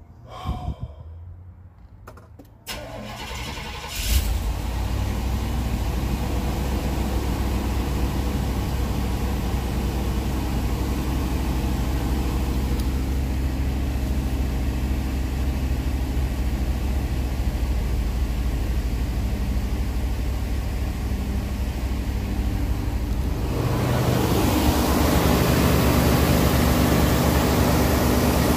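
Chevy 454 big-block V8 cranking briefly and catching about four seconds in, then running at a steady high cold idle, with no knock now that the loose flex plate bolts have been found and tightened. It gets louder near the end.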